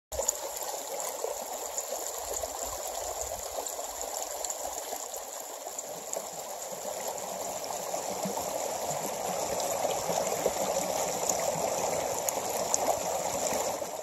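Small mountain stream flowing over rocks: a steady babble of running water, growing slightly louder in the second half.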